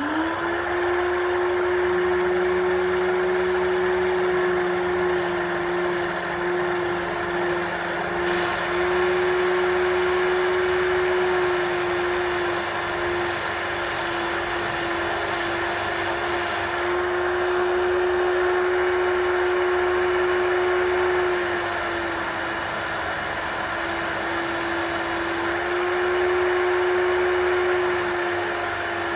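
Small electric motor of a cut-down drill bit sharpener spinning up at the start and then running steadily, its little grinding wheel grinding a drill bit with a hiss that comes and goes several times as the bit is pressed on and lifted.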